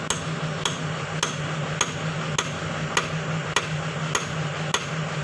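Hammer striking metal excavator parts in an even rhythm, a little under two blows a second, each blow ringing briefly, over a steady low hum.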